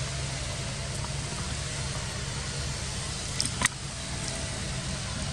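Steady rushing background noise with a low hum, broken about three and a half seconds in by two quick sharp taps as a macaque knocks against the camera.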